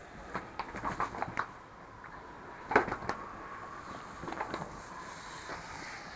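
Fattening pigs under a water spray: a string of short grunts and knocks as they move about the pen, the loudest about three seconds in.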